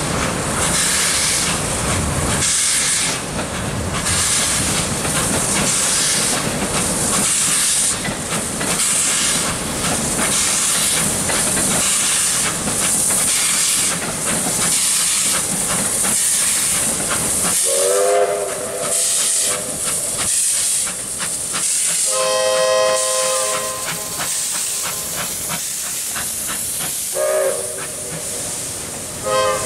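Victorian Railways R class 4-6-4 steam locomotive R711 getting its train under way, steam hissing with a slow, even beat of exhaust. In the second half several whistle blasts sound, the first opening with a rising glide and a louder one a few seconds later.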